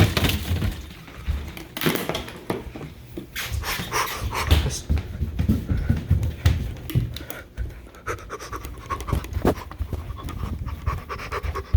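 Heavy panting breaths close to the microphone, mixed with irregular knocks and rustling.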